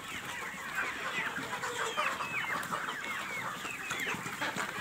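A large flock of desi (country-breed) chickens clucking and calling, many short calls overlapping one another without pause.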